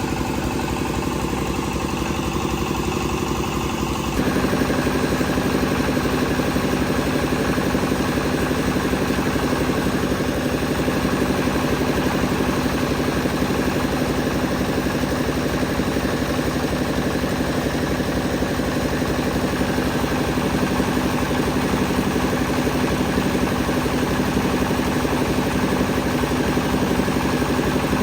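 An engine running steadily; it grows louder and changes in tone about four seconds in, then holds steady.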